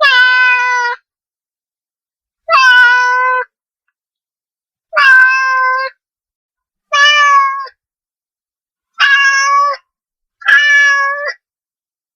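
A cat meowing six times, each meow under a second long and fairly even in pitch, with complete silence between the calls.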